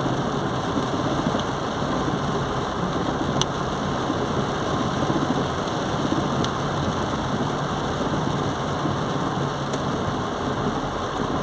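Inside a car driving in heavy rain: the engine hums steadily under the hiss of tyres on the wet road and rain on the car. Two or three faint clicks come through.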